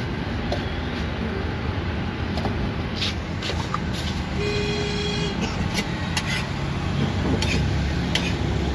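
Steady low rumble of street traffic, with one short car-horn toot about halfway through. Sharp clicks of a metal spatula tapping and scraping on the flat steel griddle come in the second half.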